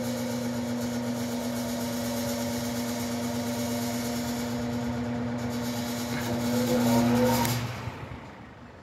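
High-velocity floor fan's electric motor running with a steady hum and rush of air; about seven and a half seconds in it is switched off, the hum stops and the sound dies away.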